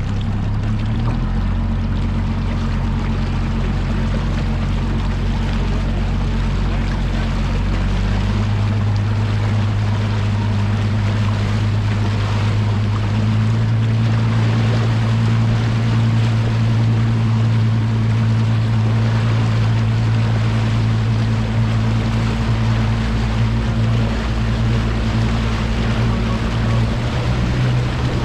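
Bass boat's outboard motor running at low, steady speed, its note shifting slightly a few times, with water and wind noise over it.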